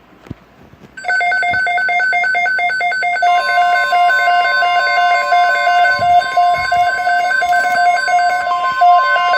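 Emergency alert tones from NOAA Weather Radio start about a second in: a rapid warbling two-tone signal, joined about three seconds in by the steady high warning alarm tone. They signal an alert, here a severe thunderstorm watch.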